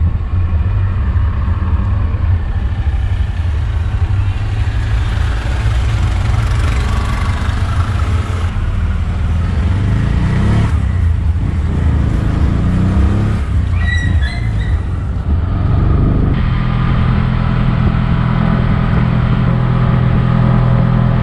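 Auto-rickshaw (tuk-tuk) engine running under way, heard from the open passenger seat with wind and road noise. The engine pitch climbs and falls through the middle, then it settles into a steady, stronger hum.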